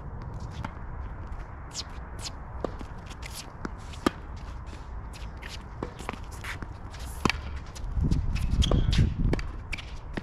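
Tennis rally on a court: sharp pops of the ball struck by rackets and bouncing, among many quick scuffs and squeaks of tennis shoes, over a steady low rumble that swells near the end.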